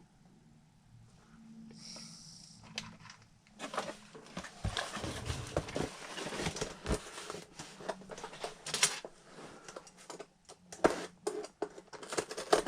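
Unboxing handling noise: irregular rustling, clicks and light knocks of plastic packaging and parts being handled. It begins about three and a half seconds in.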